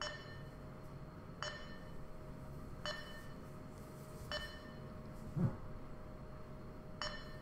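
Short electronic beeps from a coordinate measuring machine's inspection system, five of them about one and a half seconds apart, each marking a touch point taken by the probe as a circle feature is measured. A single low thump comes a little past halfway, over a faint low hum.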